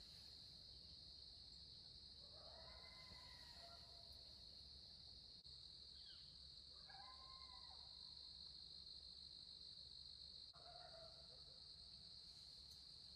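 Faint evening insect chorus, a steady high-pitched buzz, with three short distant animal calls, each about a second long: about two seconds in, about seven seconds in, and near eleven seconds.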